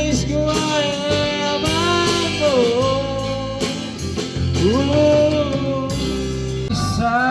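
Amateur live band playing a slow Tagalog love ballad: bass guitar, drums with cymbals, keyboard and guitar. A singer holds long notes that slide in pitch between the sung lines.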